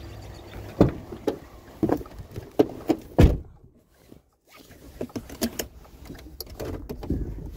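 A run of clunks and knocks as scrap items are shifted and packed into the back of a vehicle, several sharp ones in the first few seconds, a brief near-silent gap, then more knocks.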